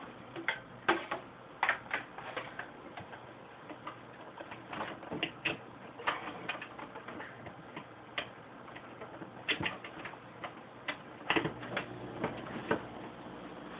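Aquarium air stone bubbling, fed by a newly switched-on Tetra Whisper 20 diaphragm air pump: irregular sharp pops and clicks of bubbles breaking the water surface, several a second, over a faint steady hum.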